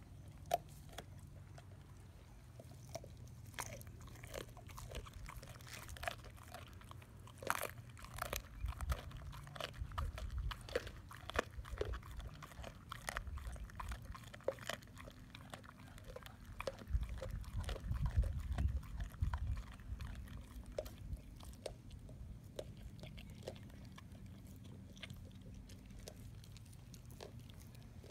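A Boxer-mix dog chewing a raw salmon head: irregular wet crunches and sharp cracks as it bites through, with heavier low thumping at times.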